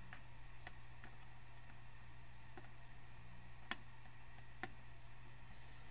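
Solder melting under a soldering iron tip on a circuit board's pins: a few faint, irregular ticks over a steady low hum, the strongest a little under four seconds in.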